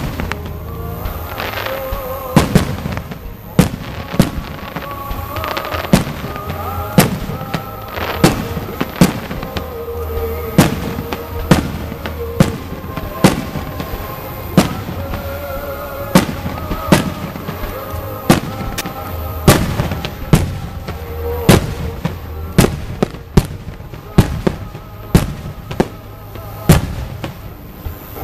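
Fireworks shells bursting in a steady barrage, a sharp bang about once a second, with music playing underneath.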